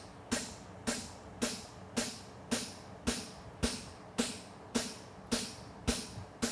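A hammer strikes a handled fuller, driving the nail groove into a red-hot steel horseshoe on the anvil. The blows come in a steady rhythm of a bit under two a second, each a sharp metallic clink with a short ring.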